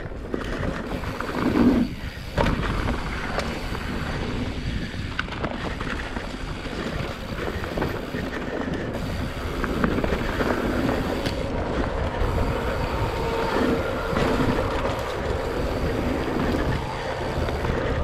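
Wind buffeting the microphone of a bike-mounted camera, with the steady rumble and scattered clicks and rattles of a mountain bike rolling fast over rocky dirt singletrack.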